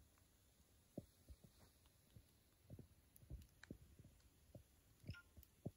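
Near silence, with faint, irregular low pops and a few small clicks.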